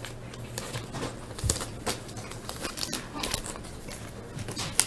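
Trading card pack wrappers and cards being handled: scattered light crinkles, rustles and small clicks, over a faint steady hum.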